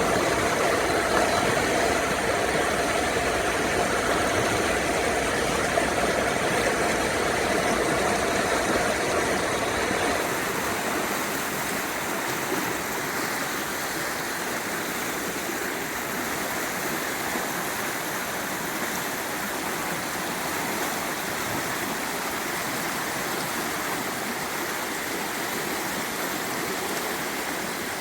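Credit River water rushing steadily. For about the first ten seconds a steady motor hum and low rumble run under the water, then drop away, leaving only the water.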